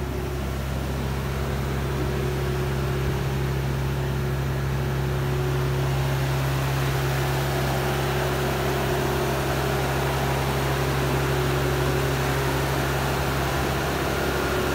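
A machine's engine running at a steady speed: an even, low drone with a constant hum.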